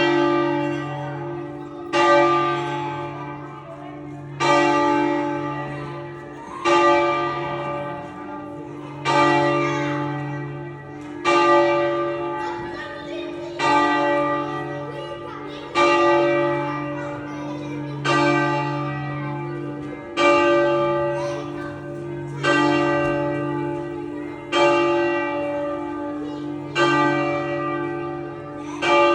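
The bells of Parma Cathedral ringing for noon. A stroke comes about every two and a quarter seconds, and each one rings on and fades before the next, over a lasting low hum.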